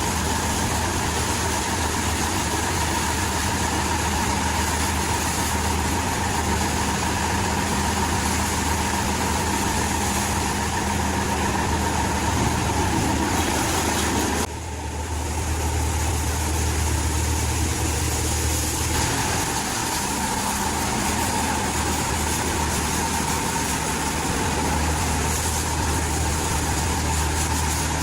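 Engine idling steadily with a low drone, dipping briefly about halfway through.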